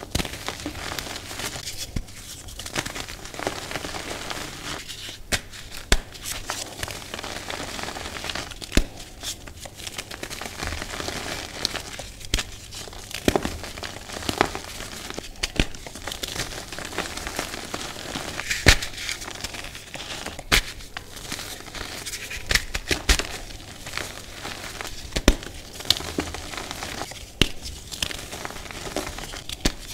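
Dyed, reformed gym chalk being crushed and crumbled by hand: a steady dry crunching with frequent sharp snaps at irregular moments as chunks break apart.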